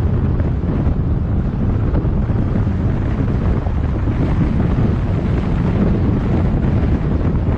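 Steady low rumble of wind buffeting the microphone, mixed with road noise from a moving car.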